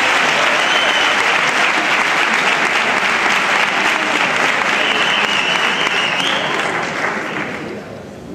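Theatre audience applauding, with some cheering voices over it; the applause dies away in the last second or so.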